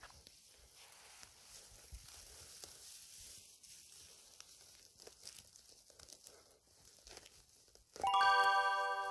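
Dry grass and stems rustling and crackling faintly under a hand parting them. About eight seconds in, a much louder steady electronic tone of several notes starts and holds.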